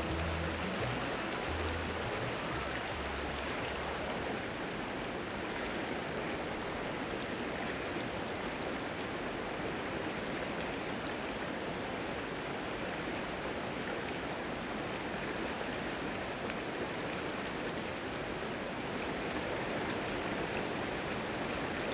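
Shallow, fast river water rushing steadily over rocks and around a wading angler's legs.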